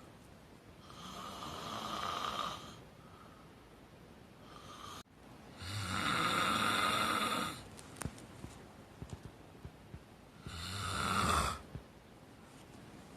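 Loud snoring: three long snores four to five seconds apart, the loudest about six seconds in, with a short fainter one just before it and a few faint clicks between the last two.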